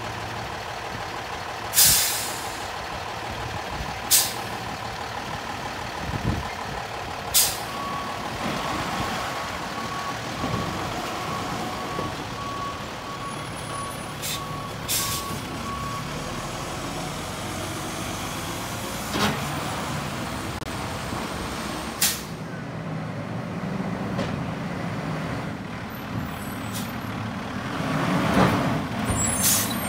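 Autocar garbage truck with a Heil side-loader body: the diesel engine runs steadily while the air brakes let out several short, sharp hisses, and a backup alarm beeps evenly for about eight seconds near the middle. Near the end the engine sound swells as a truck pulls up.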